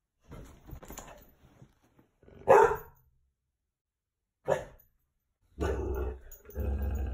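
A dog barking at a bug on the ceiling: two short, sharp barks about two seconds apart, then a few longer, lower, rougher sounds near the end.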